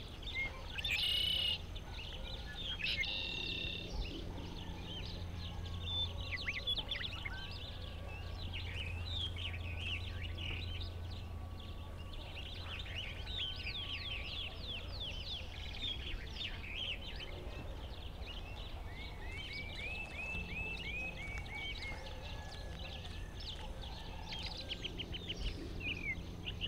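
Many birds chirping and trilling over a low steady hum, with a short louder burst of noise about a second in.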